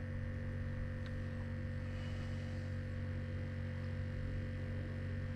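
A steady hum made of several steady tones, low to mid pitched, with nothing else over it.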